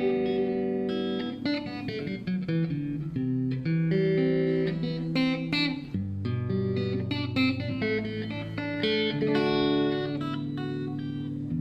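Guitar music: plucked and strummed guitar chords changing every second or so, with notes ringing on.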